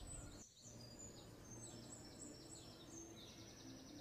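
Faint chirping and twittering of small birds, many quick high calls in a row, over a faint low hum of the city.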